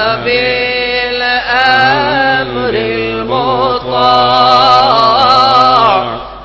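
Devotional chant sung in a slow melody, with long held notes that waver in pitch; the singing dips briefly near the end.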